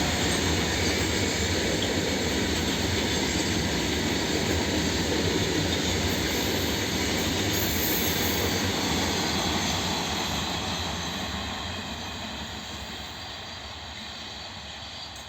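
Freight train wagons rolling past on the track: a steady heavy rumble and rattle of wheels on rails that fades away from about ten seconds in as the train moves off.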